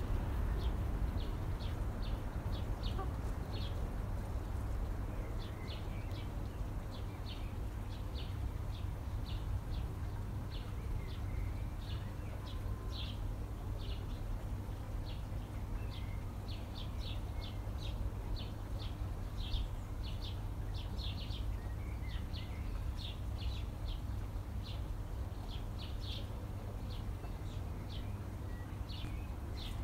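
Small birds chirping in many short, quick calls throughout, over a low steady rumble.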